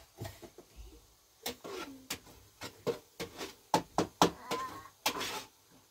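Irregular knocks and clatter, with a few brief pitched sounds in between.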